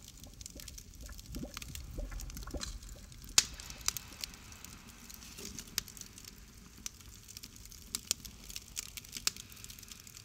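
Large cooking pots of steaming food: faint liquid sloshing and bubbling with scattered clinks and knocks of metal, the sharpest knock about three and a half seconds in.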